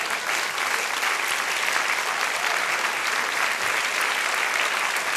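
Large seated audience applauding, a dense, steady clapping that has just swelled up.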